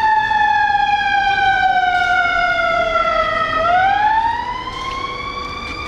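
Emergency siren on a fire department chief's SUV, sounding a slow wail: it falls steadily for about three and a half seconds, then sweeps back up. It gets quieter a little past four seconds in as the SUV pulls away.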